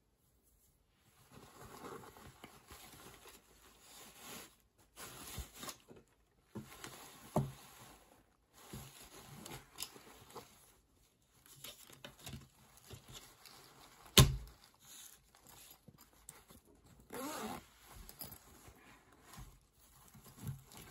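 Cotton fabric pouch rustling as hands handle and open it, with a sharp knock about two-thirds of the way through and a smaller one about a third in. Near the end a zip pouch is opened with a rasp, and its shredded-paper filling crinkles.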